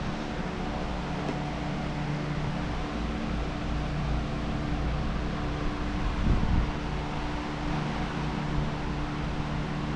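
A steady mechanical hum with several steady tones and a low rumble, and a brief louder noise about six seconds in.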